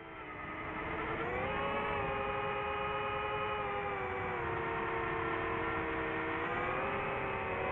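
FPV racing drone's electric motors and propellers whining, several pitches at once, fading in at the start. The pitch rises about a second in, sinks around four seconds and rises again near the end as the throttle changes.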